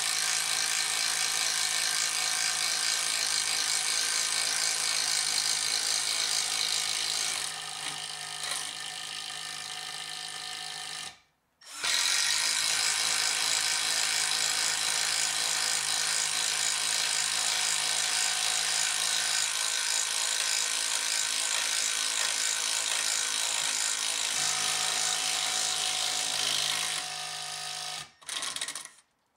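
Milwaukee M12 impact driver running steadily under load in wood, boring with a spade bit and driving a lag screw. The sound steps down a little about seven seconds in, cuts out briefly near eleven seconds, resumes and then stops shortly before the end.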